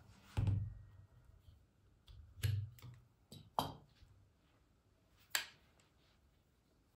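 Metal clicks and knocks from a Gevarm .22 LR semi-automatic carbine being handled, its magazine taken out and its action worked, with dull thumps as the rifle is set against the cloth-covered table. About six separate sounds, the sharpest click coming about five and a half seconds in.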